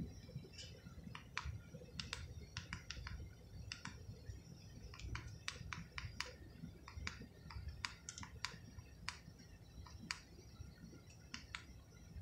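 Faint, irregular light clicking: short, sharp clicks, roughly two or three a second, with no steady rhythm.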